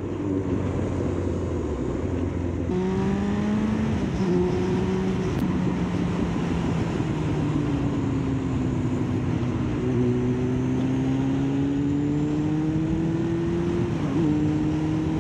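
Kawasaki ZX9R's inline-four engine running under way, heard from the rider's seat with wind rush over it. The engine note steps up about three seconds in, eases down slowly, then rises steadily from about ten seconds, with a brief dip near the end.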